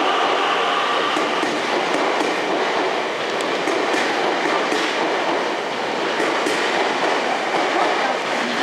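Keio Inokashira Line electric train running past along the station platform: a steady rumble of wheels on rail with clacks over the rail joints. A faint motor whine dies away in the first second.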